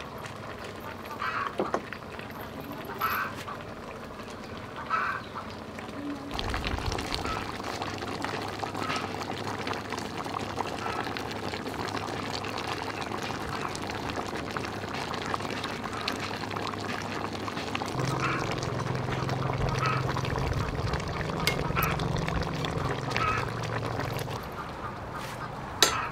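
Short calls of farmyard fowl, repeated every second or two over steady background noise. A low steady hum joins in about two-thirds of the way through and lasts several seconds.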